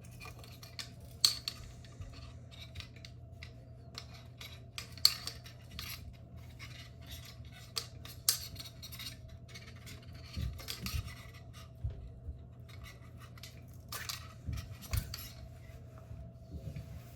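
Metal clicks, clinks and scrapes of a screwdriver and small metal parts being handled while a metal track light fixture is unscrewed, with a few dull knocks in the later part.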